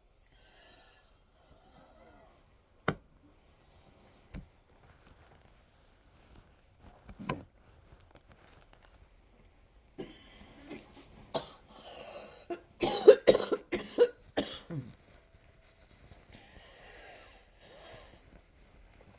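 A woman's coughing fit: several hard coughs in quick succession starting about ten seconds in, followed by noisy, wheezy breaths near the end. A few isolated clicks come before it.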